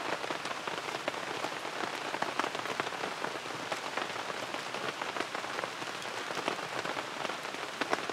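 Steady rain falling on a camping tarp overhead, with many separate drops striking it.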